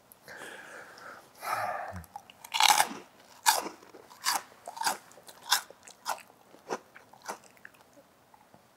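A crisp snack being bitten and chewed close to a clip-on microphone: a few loud crunches first, then steady chewing crunches about every half second that die away near the end.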